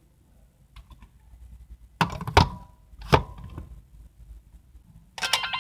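Hard plastic toy pieces clicking and knocking as a Vistamp stamp is set down against the others, with a few sharp clacks about two and three seconds in. Near the end an electronic ringtone-like jingle of beeping tones starts.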